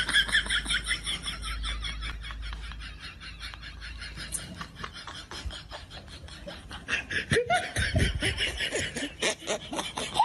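A person laughing in rapid, high-pitched pulses, growing louder about seven seconds in.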